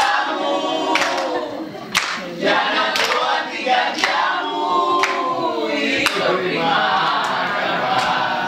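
A group of voices singing together, with a sharp clap-like hit about once a second.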